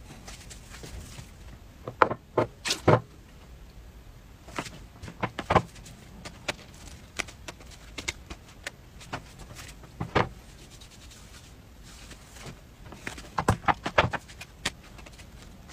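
Scattered knocks and clicks from an electric crepe pan being handled on a tabletop, with clusters of sharper knocks about two seconds in and again near the end.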